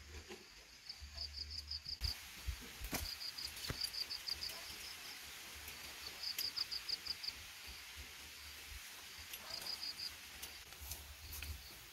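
Forest ambience: a high chirping call repeated in short rapid runs of about five or six notes, several times over, with a few sharp clicks.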